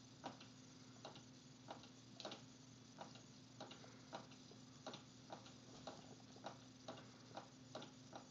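Faint, sharp clicks, about one or two a second at slightly uneven spacing, over low room hum.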